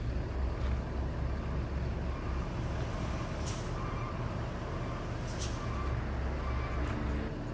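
Engines of buses and trucks running as they move off slowly, a steady low rumble. Two short air-brake hisses come about three and a half and five and a half seconds in.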